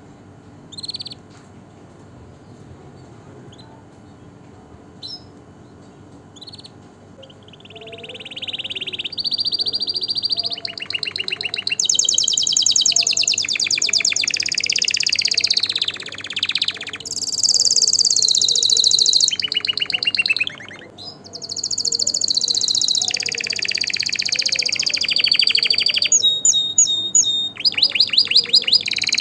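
Canary singing: a few short, high chirps, then from about seven seconds a long, loud song of fast trills and rolls. The song breaks briefly near twenty seconds and has a rapid run of separate repeated notes near the end.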